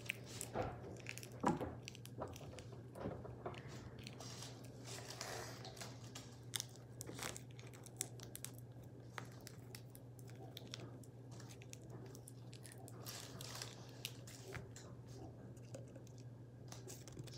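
Faint scattered clicks, crackles and rustles of small objects being handled, over a steady low hum.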